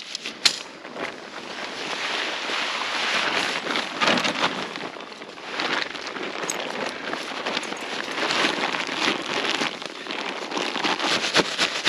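Nylon tent fabric rustling and crinkling as it is handled, folded and rolled up by hand, with a sharp click about half a second in.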